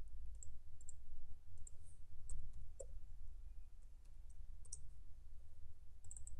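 Scattered clicks of a computer mouse and keyboard keys being pressed while typing a short word, irregularly spaced, over a low steady hum.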